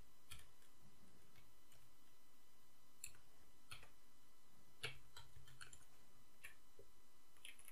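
Faint, irregular keystrokes on a computer keyboard: a dozen or so scattered clicks while code is typed.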